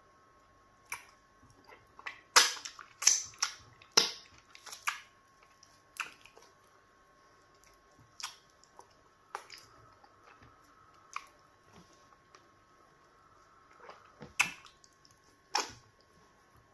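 Close-up wet mouth sounds of eating fufu dipped in okra stew by hand: sharp sticky lip smacks and clicks, a dense run about two to five seconds in, then scattered ones, over a faint steady hum.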